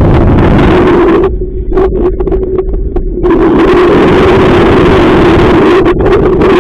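Strong wind buffeting the microphone with a heavy, loud rumble, over the steady hum of the small inflatable boat's motor. The rushing dies down for about two seconds near the middle, then comes back.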